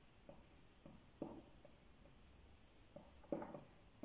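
Marker pen writing on a whiteboard: faint short strokes at an uneven pace, the clearest about a second in and just after three seconds.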